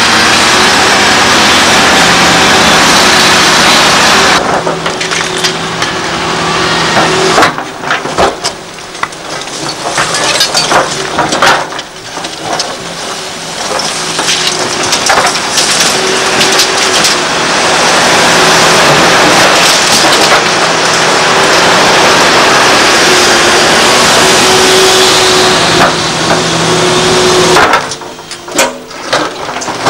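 Liebherr R964 hydraulic excavator working demolition rubble: its diesel engine runs steadily at the start and again in the second half, and in between and near the end its bucket scrapes, cracks and crunches through broken brick and concrete.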